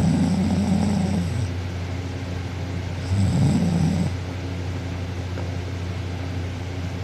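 A sleeping girl snoring: two snores about three seconds apart over a steady low hum.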